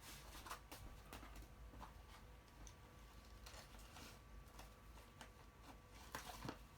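Near silence: faint, scattered small clicks and taps, a couple slightly louder near the end, over a faint steady hum.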